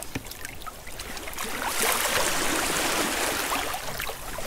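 Water sloshing and washing around wading boots in a shallow tidal rock pool, a steady wash that swells about a second and a half in, with rain falling on the water.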